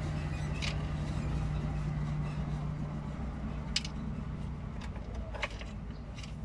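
A steady low mechanical hum, with three short metallic clicks of a small nut being turned onto a terminal stud by hand.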